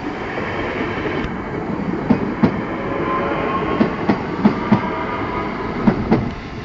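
Class 466 Networker electric multiple unit pulling away and passing close by. Its wheels knock over rail joints in close pairs, over a steady whine and running noise.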